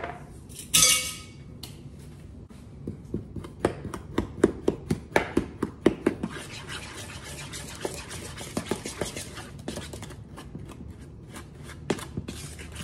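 A metal spoon stirring a thick sauce of ketchup, brown sugar and dry mustard in a bowl: repeated scrapes and clicks against the bowl's sides, several a second. A brief ringing clink comes about a second in.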